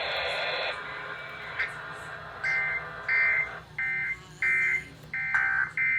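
Emergency Alert System SAME data bursts over FM radio: a run of short, buzzing two-tone digital bursts, each about half a second long. Coming straight after the spoken Blue Alert message, they are the end-of-message code that closes the alert. Radio hiss cuts off under a second in.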